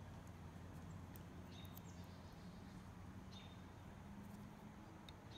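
Near silence: room tone with a faint steady low hum and a few faint short high sounds.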